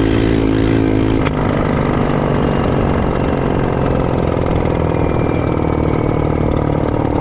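Four-wheeler (ATV) engine running close to the microphone. The note is steady up to a sharp click about a second in. After that it turns rougher and wavers, as if the engine is under changing throttle while riding.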